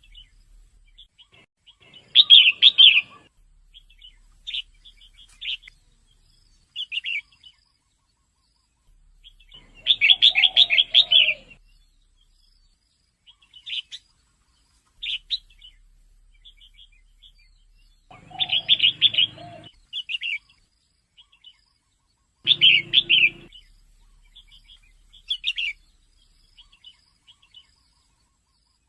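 Female red-whiskered bulbul calling: short bursts of rapid chattering notes every few seconds, with single chirps in between.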